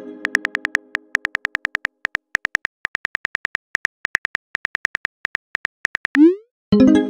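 Simulated phone keyboard clicks tapping rapidly and evenly as a text message is typed, then a short rising whoosh and a ringing chime just after six seconds in as the message is sent. The tail of an earlier chime fades out over the first second.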